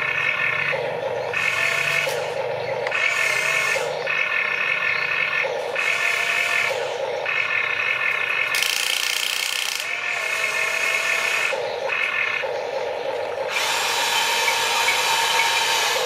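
Small electric motors and gearboxes of a radio-controlled toy excavator whining as it works its boom, arm and bucket. The sound switches every second or so between a higher whine and a lower buzz as one function stops and another starts. A harsher, wider whirr takes over for the last couple of seconds.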